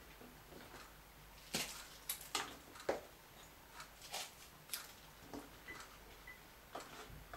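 Light, irregular clicks and taps of vegetables and a knife being handled during kitchen prep. The strongest come between about one and a half and three seconds in, with fainter ones after.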